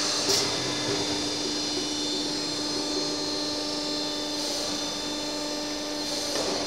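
Trumpf Trumatic 120 Rotation CNC punch press running idle with a steady hum, broken by short hisses near the start, about four and a half seconds in and near the end.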